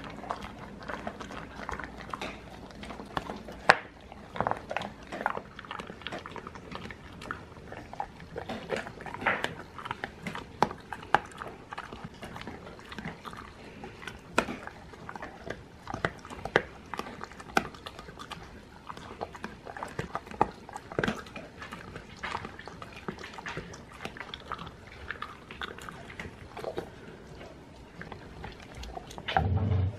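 A dog chewing an alligator chew treat close to the microphone: irregular crunches and clicks of teeth on the hard chew.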